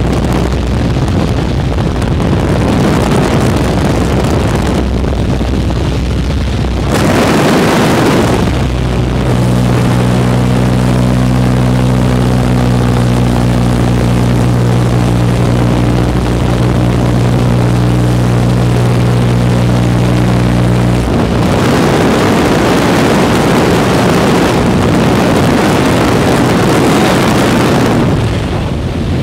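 Light aircraft's engine and propeller running, heard through the open jump door with heavy rushing wind on the microphone. A steady low engine drone stands out for about twelve seconds in the middle, and rushing wind alone takes over near the end.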